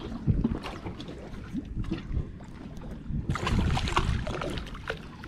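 Wind buffeting the microphone, with water splashing and slapping at a boat's side as a hooked fish thrashes at the surface. The rush and splashing grow louder a little past halfway through.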